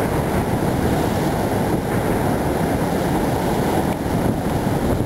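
Wind buffeting the microphone over the steady rush of rough Atlantic surf breaking on rocks.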